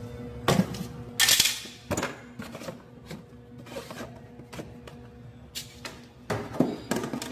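Sharp clicks and knocks of a water dispenser's plastic parts being handled during repair, with a short hissing burst at about a second in and another cluster of knocks near the end.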